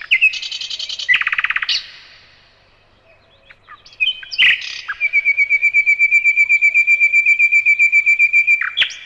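Nightingale singing: a phrase of quick whistled notes ending in a fast rattle, a pause of about two seconds, then a second phrase that runs into a long, even trill of rapidly repeated notes, about ten a second, for nearly four seconds.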